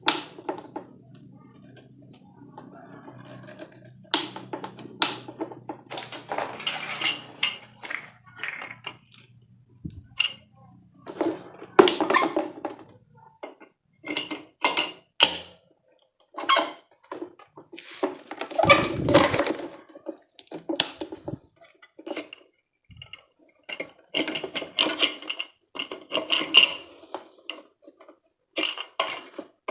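Hard plastic fan parts and packaging being handled: an irregular run of clicks, knocks and rustles, loudest in clatters about twelve and nineteen seconds in. A low steady hum underlies the first part and stops about thirteen seconds in.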